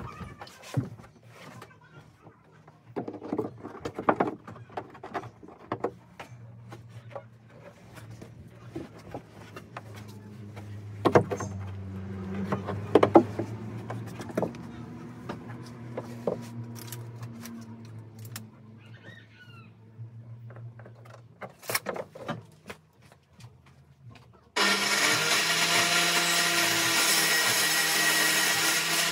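Knocks, thumps and rubbing on a plywood speaker box as someone climbs about and works inside it, with a low steady hum through the middle. Near the end a loud, steady machine noise starts abruptly and keeps running.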